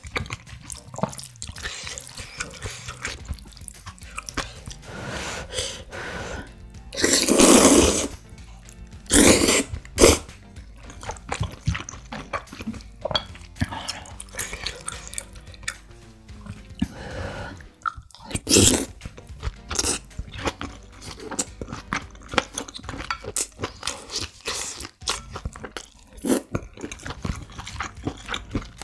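Close-miked eating of creamy instant noodles: slurping, chewing, and small clicks of wooden chopsticks and a wooden spoon against the bowl. There are louder slurps about seven and nine seconds in.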